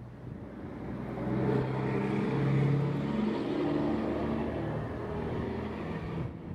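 A motor vehicle's engine humming in the street, growing louder about a second in and holding steady before easing near the end.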